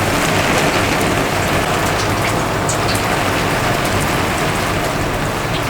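Oil in a deep fryer sizzling steadily with a dense crackling hiss and a few small pops, as chicken fries.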